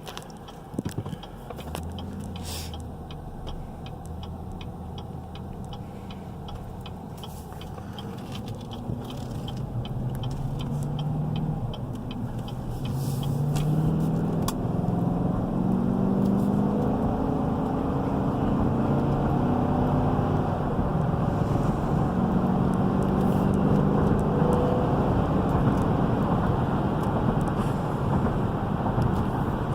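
2017 GMC Yukon XL's 5.3-litre V8 and road noise heard from inside the cabin as the truck pulls away and gathers speed, the engine note rising in steps as the automatic transmission shifts. A steady ticking, like a turn signal, runs through the first half.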